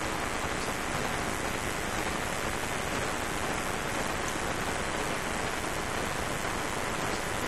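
A steady, even hiss of noise that does not change, with no speech or music over it.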